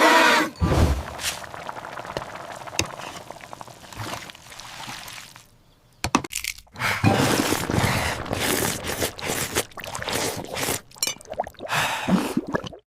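Kitchen cooking sounds: liquid sloshing and pouring, with scattered clicks and clatter. A short quiet spell comes about five and a half seconds in.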